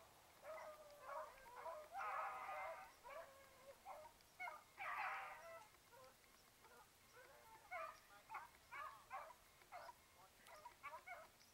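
A pack of beagles baying faintly, in repeated clusters of calls, as they run a rabbit on its scent.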